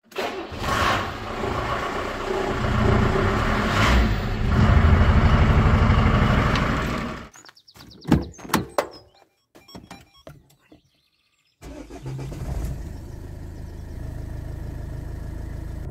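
Loud vehicle noise for about the first seven seconds, then car door handle and latch clicks and knocks and a short hush. About twelve seconds in, a car engine starts and settles into a steady idle.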